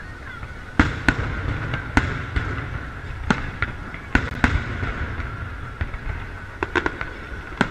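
Aerial fireworks shells bursting overhead: a dozen or so sharp bangs at uneven intervals, some coming in quick pairs.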